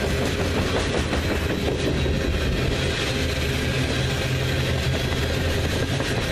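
Coal train's hopper cars rolling past at speed: a steady, loud rush of wheel and rail noise with a low hum underneath.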